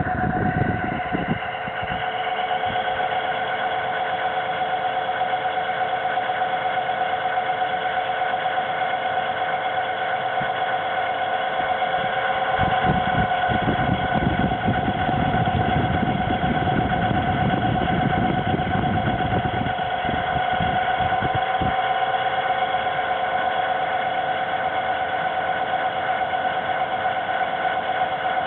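Hitachi air conditioner running with a steady whine made of several constant tones, joined by a rougher low rumble from about 13 to 21 seconds in.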